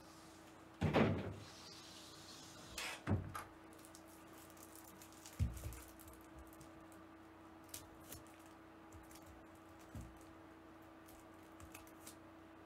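Off-camera handling noises: a clatter about a second in, a couple of knocks around three seconds, a dull thump at about five and a half seconds and another near ten, with scattered small clicks over a faint steady hum.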